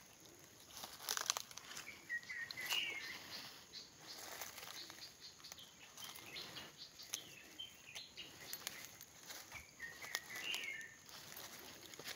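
Footsteps crunching and rustling through dry bamboo leaves and forest litter, faint. A bird calls twice with a short chirping phrase, about two seconds in and again about ten seconds in.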